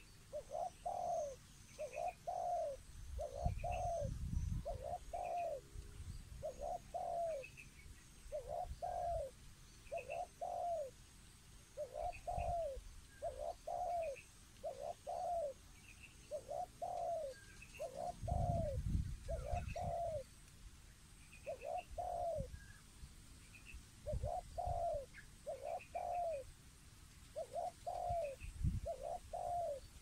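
A dove cooing: short rising-and-falling coos repeated steadily, mostly in pairs, with occasional low rumbles.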